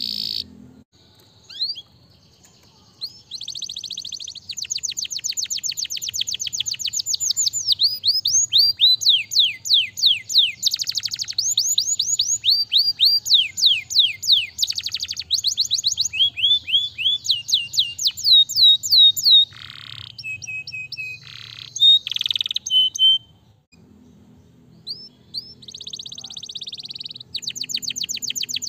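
Domestic canary singing: fast runs of repeated falling whistled notes, switching to a new trill every few seconds, with a couple of short breaks about two-thirds of the way through.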